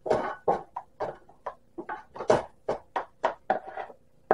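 Spatula scraping and knocking a mushy cauliflower mixture out of a nonstick frying pan into a plastic container: a quick run of short scrapes and taps, about three to four a second.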